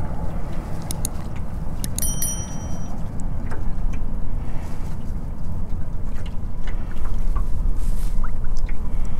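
Wind buffeting the microphone as a steady low rumble, louder from about seven seconds in. Faint small splashes of water come from a striped bass held by the lip at the surface. A couple of sharp clicks and a short ringing chime come about two seconds in.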